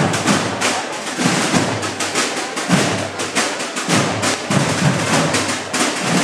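Holy Week procession drums playing a steady marching cadence: rapid snare-drum strokes with deeper drum beats recurring about once a second.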